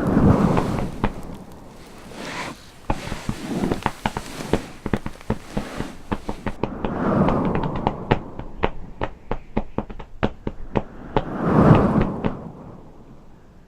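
Dense, irregular crackling and popping, the pops coming faster in the second half, over several swells of low rumble, the strongest near the start and near the end.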